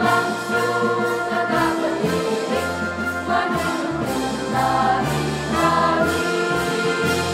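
Girls' choir singing a school march to electronic keyboard accompaniment, with a bass line and a steady beat of about three strokes a second. The song closes on a held chord at the very end.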